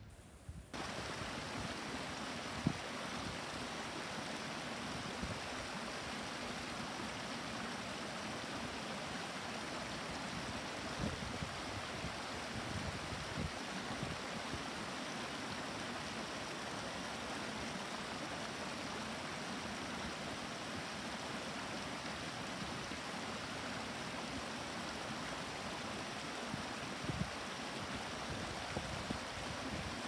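Shallow stream rushing over a flat rock bed: a steady, even wash of water that starts about a second in.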